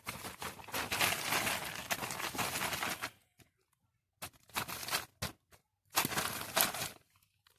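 A bag being handled, rustling and crinkling in a long run of about three seconds, then two shorter bursts.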